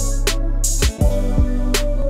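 Background music with a steady beat: a repeating bass line under regular drum hits.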